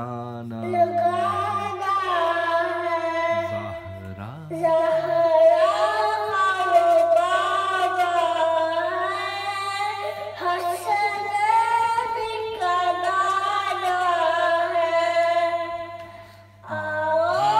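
A young boy reciting a devotional piece in a melodic sung style through a handheld karaoke microphone, in long held phrases with a short break about four seconds in and another near the end. A steady low hum runs underneath.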